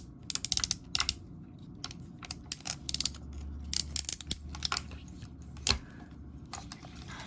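Plastic Transformers action figure being handled, its joints and parts clicking and tapping in quick irregular runs, with a soft knock near the end.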